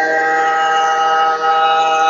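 Table-mounted router running and cutting a stopped rebate in an MDF board as it is fed along the fence: a steady whine made of several held tones.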